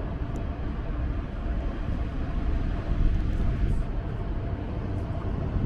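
Street ambience dominated by a steady low rumble of road traffic, with a faint engine hum.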